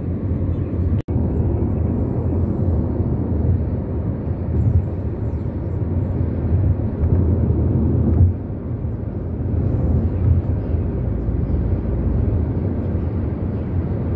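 Steady low road and engine rumble heard from inside a moving vehicle, with a sudden momentary dropout about a second in.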